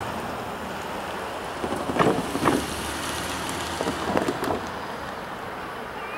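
Steady outdoor noise like wind or distant traffic, with two short clusters of knocks about two seconds and four seconds in.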